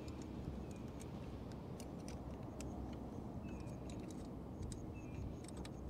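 Faint, scattered metal clicks and ticks of an Allen key working small captive screws loose on a portable satellite dish's feed assembly, over a low steady rumble.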